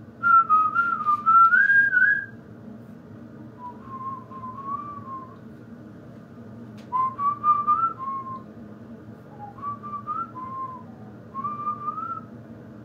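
A man whistling a tune in five short phrases with pauses between them; the first phrase is the loudest and highest.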